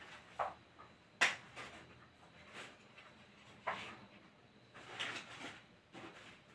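A few faint, scattered knocks and clicks of someone moving about and handling objects, the sharpest a little over a second in.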